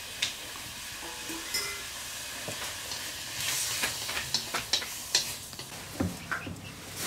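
Meat stir-frying in a large wok over a wood fire: a steady sizzle with scrapes and clicks. The sizzle flares up into a louder hiss about three and a half seconds in, as more food is dropped into the hot pan.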